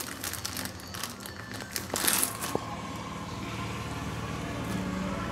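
Plastic bread bag rustling and crinkling as sliced bread is taken out, with a few light clicks. A low steady hum sets in about three seconds in.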